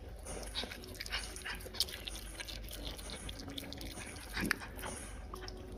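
Red panda chewing orange segments: irregular wet mouth clicks and smacks, one slightly louder about four and a half seconds in.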